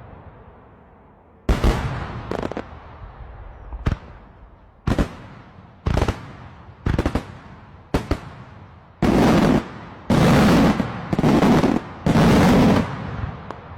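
Daylight fireworks going off: single sharp bangs about once a second, each trailing off in an echo. From about nine seconds in come four longer, louder bursts in quick succession.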